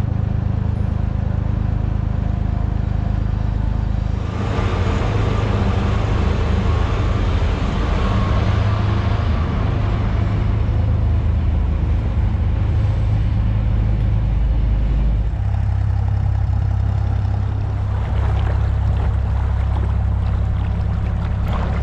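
Dutch barge's inboard engine running under way with a steady low hum, while the boat is turned around. About four seconds in a rushing noise joins it, and about fifteen seconds in the low engine note shifts.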